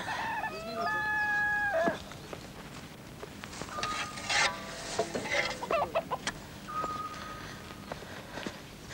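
Rooster crowing once near the start, a long drawn-out call, followed by scattered short clucks from farmyard poultry.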